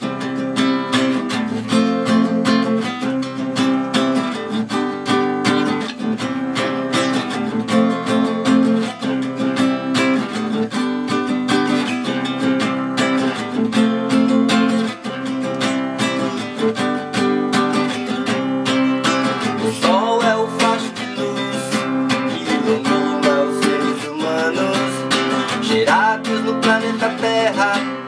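Acoustic guitar strummed in a steady rhythm, the guitar accompaniment of a reggae song played without singing.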